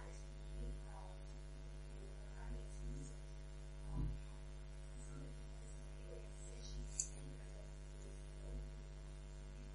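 Steady electrical mains hum on the recording, with a few faint, brief indistinct sounds and a short click about seven seconds in.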